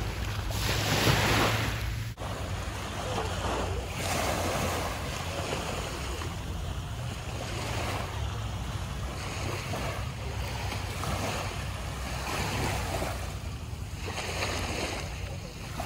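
Sea waves breaking and washing ashore, the rush swelling and ebbing every few seconds, over a steady low rumble of wind on the microphone. The sound drops out for an instant about two seconds in.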